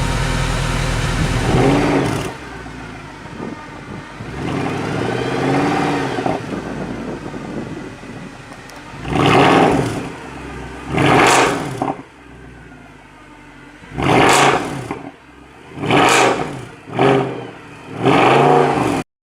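Mercedes C63 AMG's 6.2-litre naturally aspirated V8 revved in place through its exhaust: a steady run at first, then a quieter stretch with a slow rise and fall, then six sharp blips, each climbing and dropping back, coming quicker near the end. The sound cuts off suddenly just before the end.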